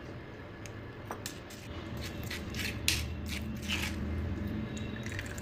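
Metal spoon scraping and pressing oily curry-leaf paste in a fine steel mesh tea strainer, to push the oil through. A run of short scrapes and clicks comes in the middle.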